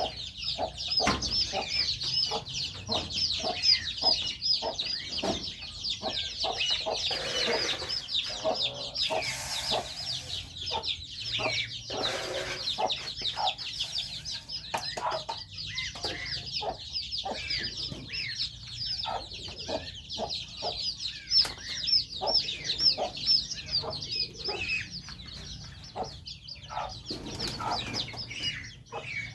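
A group of goslings peeping continuously, many high chirps overlapping, with short lower calls and clicks among them.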